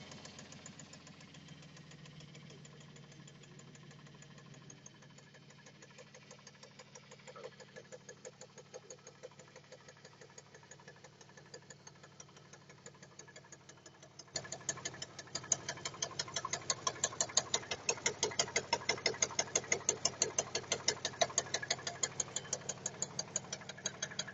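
Dodge Intrepid's 2.7-litre V6 engine running at a steady speed with a rapid, even knock, about four strokes a second, that the owner cannot place. A little past halfway the knocking suddenly gets much louder.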